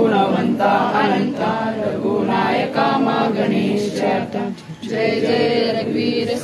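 A group of voices singing a devotional aarti chant together in unison, without pause.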